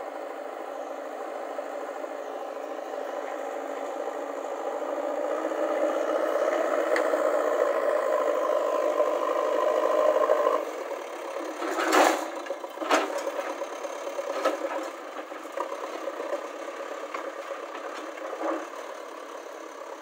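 JCB backhoe loader's diesel engine working as the front bucket pushes soil, growing louder over the first half and then dropping back sharply. Several sharp metal clanks and rattles follow, the loudest just after the engine eases off.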